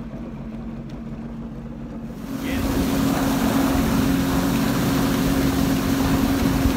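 Jet ski engine running steadily. About two seconds in, it jumps to a loud, steady engine drone with the hiss of spray and wind rush as the jet skis run at speed.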